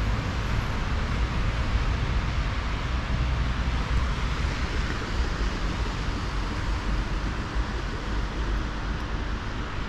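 Steady road-traffic noise from a busy city street, an even hiss with a deep, unsteady rumble underneath.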